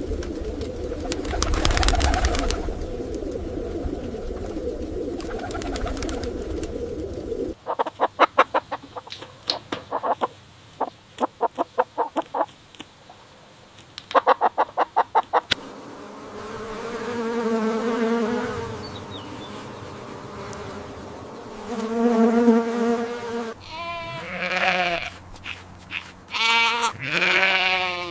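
A run of farm-animal sounds: a rough, noisy sound for the first seven seconds or so, then a chicken clucking in quick runs, then a string of quavering, rising-and-falling bleat-like calls.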